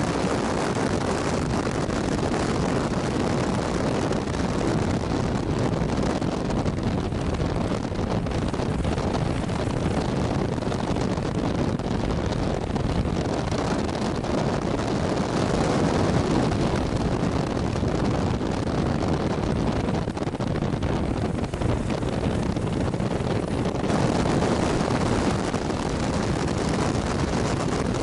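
Kawasaki KLR650's single-cylinder engine running steadily while the motorcycle is ridden, with wind rushing heavily over the helmet-mounted microphone.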